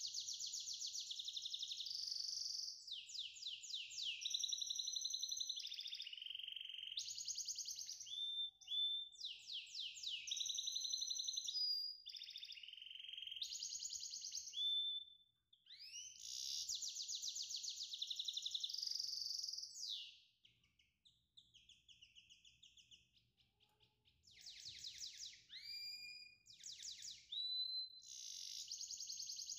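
A small songbird singing: long runs of rapid high trills and warbling phrases with quick rising and falling whistles. The song breaks off for a few seconds about two-thirds of the way through, then resumes.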